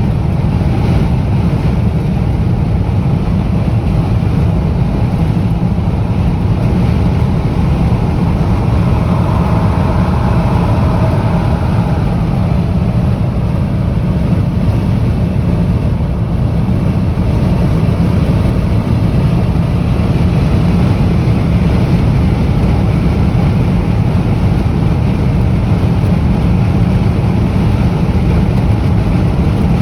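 High wind buffeting the microphone, a loud, steady low rumble, with a higher rushing swell about ten seconds in.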